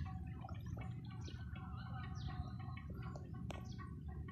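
Small birds chirping: many short, quick falling chirps and some held notes, over a low steady rumble. A couple of faint clicks come about three and a half seconds in.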